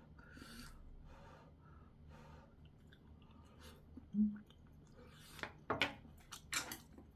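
A person eating ramen with dumplings: soft, wet chewing at first, a short 'mm' about four seconds in, then a run of sharp wet mouth smacks and clicks near the end.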